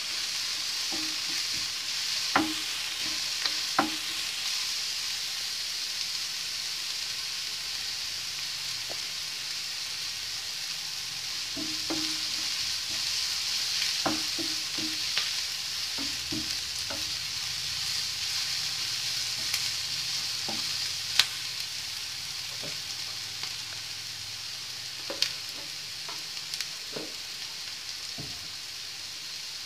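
Chopped onion, ginger and green chillies sizzling steadily as they fry in oil in a nonstick frying pan, stirred with a wooden spatula that knocks against the pan now and then.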